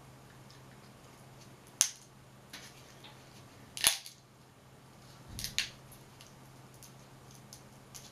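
Crab shell cracking as seafood is broken apart by hand and bitten: a few sharp snaps, the loudest about four seconds in and two close together about a second and a half later, over a steady low hum.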